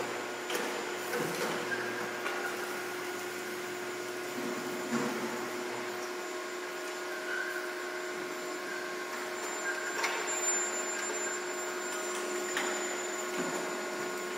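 Chain-making production line machinery running with a steady hum and a thin high whine, with a few scattered metallic knocks.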